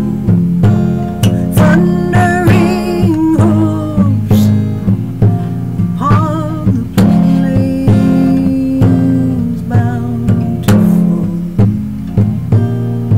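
A woman singing with a wavering vibrato over acoustic guitar playing a steady, regular pattern of plucked notes.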